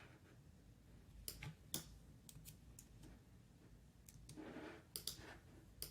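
Near silence broken by a few faint computer mouse clicks, about eight in all, as a setting is changed on a ventilator simulator.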